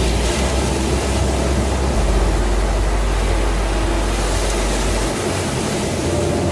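Ocean surf breaking and washing up a sandy beach as a steady rush of noise. A low sustained hum runs underneath; it drops in pitch about two seconds in and fades out about five seconds in.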